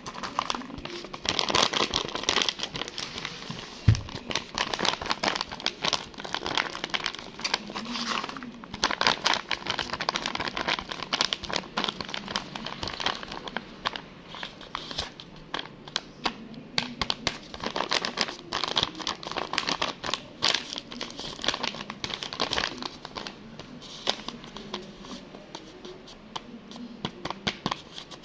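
Homemade paper blind bags, their surfaces glossy with clear tape, crinkling and rustling as fingers handle, press and rub them, with many small crackles throughout. A single loud bump comes about four seconds in.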